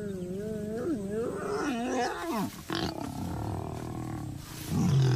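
Mating lions growling and snarling: a long wavering growl, then rougher snarls, and a short loud low growl near the end.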